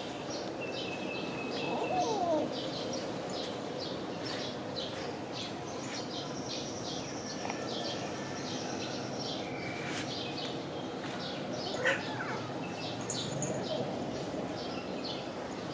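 Outdoor ambience of birds chirping in quick, repeated high notes over a steady background hiss, with a couple of brief sliding calls about two seconds in and again near twelve seconds.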